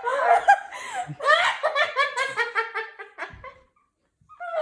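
Hearty high-pitched laughter, a quick run of ha-ha bursts that fades out and stops near the end.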